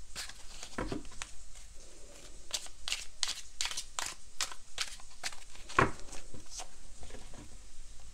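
Tarot cards being handled: a run of quick, crisp card flicks and snaps, several a second, with two duller knocks, one about a second in and one just before six seconds.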